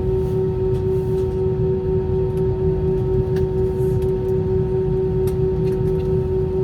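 Airbus A320 cabin noise with the engines running: a steady low rumble under a constant whine. A few faint rattles are heard.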